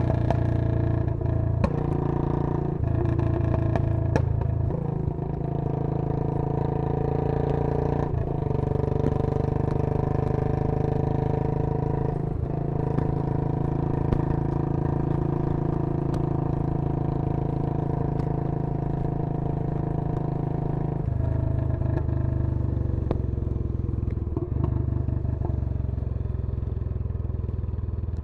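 Royal Enfield Bullet 500's single-cylinder engine and exhaust running steadily, its note changing abruptly several times as the engine speed shifts.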